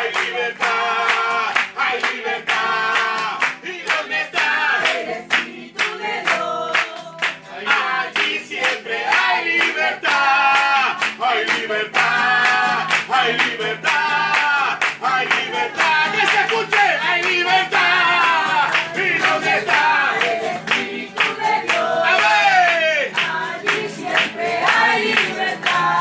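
Congregational worship song sung to acoustic guitar, with the congregation clapping steadily in time throughout.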